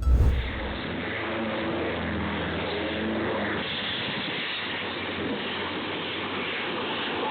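A loud low thump at the very start, then the steady rushing drone of a running aircraft, through a low-quality recording.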